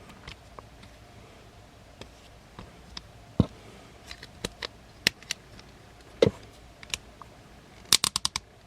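Hard plastic toy-figure parts clicking and tapping as they are handled: scattered single clicks and knocks, then a quick run of about six clicks near the end.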